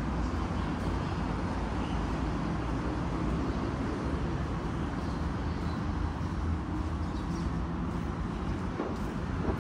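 Steady road traffic noise, mostly a low rumble with no distinct events.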